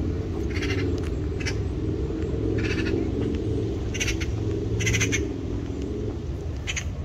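A bird calling in short repeated notes, about six calls spaced unevenly, over a steady low rumble.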